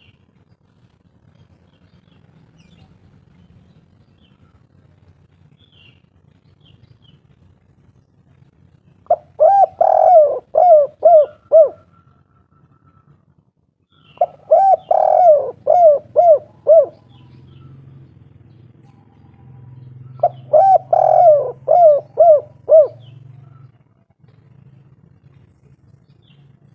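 Spotted dove (derkuku, tekukur) cooing the 'kuk 3' song: three phrases of about six short, arching coos each, a few seconds apart. A faint low hum runs underneath.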